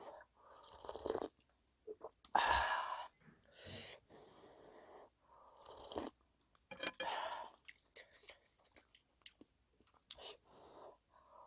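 Close-miked eating sounds of seafood knife-cut noodle soup: wet chewing and slurps of noodles and broth, coming in irregular separate bouts, the loudest about two to three seconds in.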